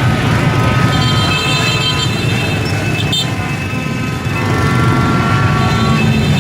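Dense crowd of motorbikes running, with several horns held and overlapping on top of the steady engine rumble.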